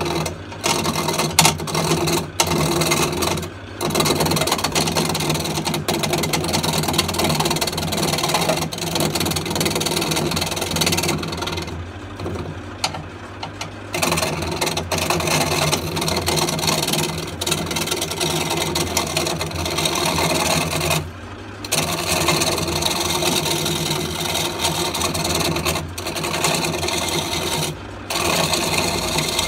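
A gouge roughing down a spinning wooden blank on a Myford wood lathe turning at low speed, about 600 RPM. The cut is a rough, scraping noise over the steady hum of the lathe. The cutting noise breaks off briefly several times, once for about two seconds in the middle, as the tool comes off the wood.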